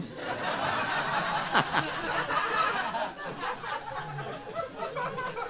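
Studio audience laughing at a punchline, loudest for the first few seconds and then dying down.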